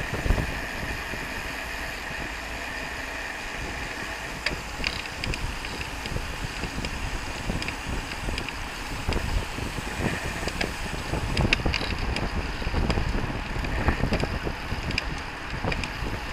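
Wind rushing over the microphone of a camera moving with a pack of racing road bicycles, a steady low rumble with scattered light clicks.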